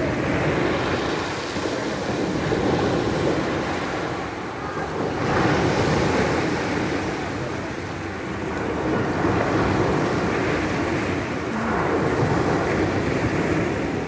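Small sea waves breaking on a pebble beach and washing back over the stones, the surf swelling about every three seconds. Wind buffets the microphone.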